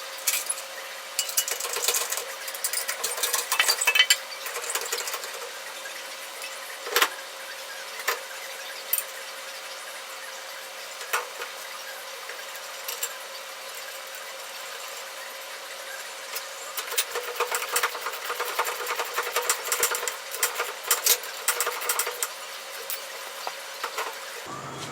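Hand tools and metal suspension parts clicking and clattering during front-end reassembly, in two long runs of rapid clicks with single knocks between them, over a faint steady hum.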